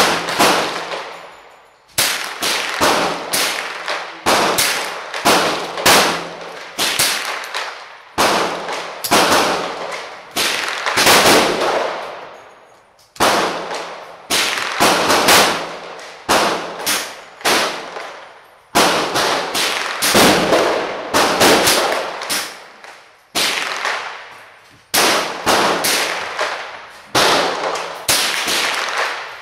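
Ruger 10/22 semi-automatic .22 LR rifle fired in quick strings of several shots a second, with brief pauses between strings. Each shot echoes off the walls of an indoor range.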